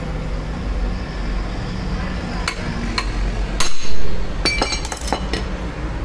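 A series of sharp metallic taps, about half a dozen, starting about two seconds in, with the loudest knock near the middle: a hammer striking a tool held on the end of a Hero Pleasure scooter's crankshaft. The shaft is bent and rubbing on the starter bendix, causing noise at self-start, and the taps are knocking it straight.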